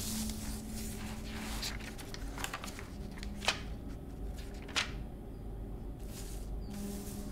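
Paper rustling and sliding as loose sheets of sketches and a sketchbook are handled and leafed through, with two sharp clicks around the middle. A low steady hum sits underneath at the start and again near the end.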